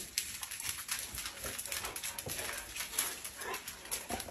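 Claws of several large dogs clicking and tapping on a laminate floor as the pack trots in together, in a quick, uneven patter.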